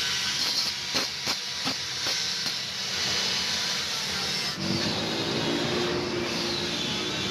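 Metalworking workshop noise: a steady hiss with a few sharp clicks, then about four and a half seconds in a power-tool motor starts running.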